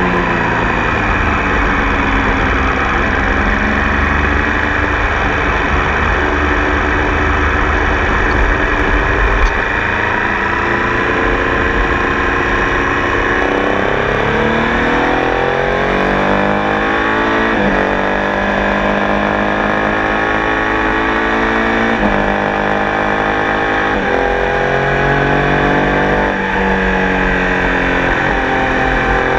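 Triumph Tiger Sport 800 motorcycle's three-cylinder engine under way. The engine note eases off and falls at first. Then the bike accelerates hard, revving up through the gears with three sudden drops in pitch at the upshifts, about two thirds of the way in, then more often toward the end.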